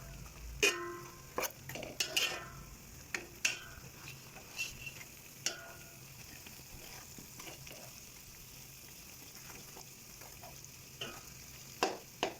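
A utensil scraping and clinking against a pan while stirring fried glutinous rice through melted sugar and oil, over a steady low sizzle. The scrapes come often in the first few seconds, thin out in the middle and pick up again near the end.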